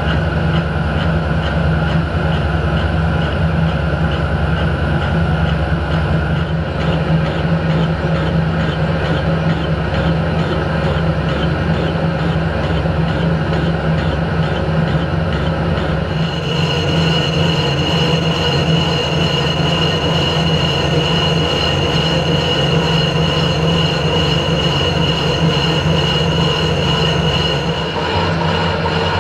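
Harrison 12-inch swing lathe running steadily, spinning a cast steam-locomotive cylinder block while a boring bar takes a light cut through the bore. A high steady whine joins about halfway through and drops away near the end.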